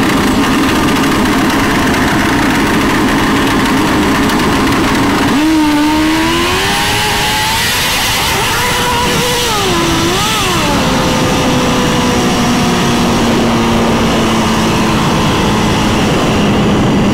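Turbocharged Suzuki GSX-R1000 drag bike, an inline-four, holding a steady note on the starting line, then launching about five seconds in. Its pitch climbs and wavers for about five seconds, then drops to a lower, steady, slowly falling note.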